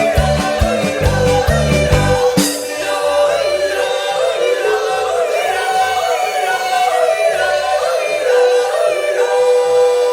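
Background music with singing. A heavy bass beat drops out abruptly about two and a half seconds in, leaving the sung melody over a lighter accompaniment.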